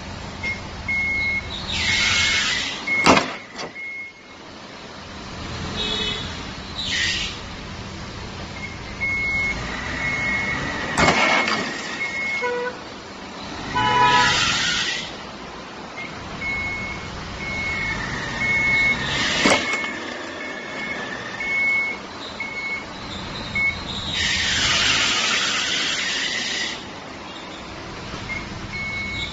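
A car maneuvering back and forth in a tight parking spot, with its reversing warning beeping in runs of short high beeps, about two a second. Several bursts of hiss and three sharp knocks come in between, the first knock about three seconds in being the loudest.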